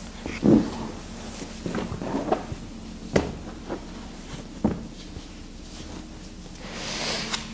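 Yoga bolster with a sheepskin on it being set down and shifted into place on a mat: a series of soft thumps and rustles, the loudest about half a second in, with a longer rustle building near the end.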